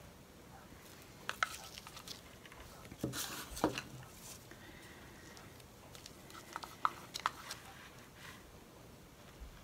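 Small plastic paint cups and wooden stir sticks knocking and clicking as they are handled, set down on the table and picked up again. There are a few scattered clusters of clicks, the loudest about three seconds in and again near seven seconds.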